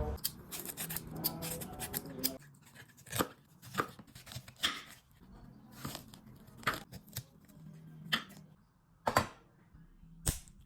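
Ingredients for a herbal remedy being prepared by hand: a dozen or so sharp, irregular knocks and crisp cutting or tearing sounds.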